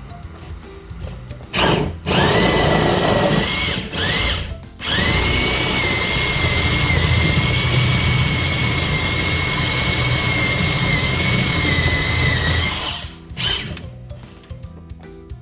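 Power drill running in several bursts with a steady high whine: a run of about two seconds, a short one, then one long steady run of about eight seconds and a brief final burst. Background music plays underneath.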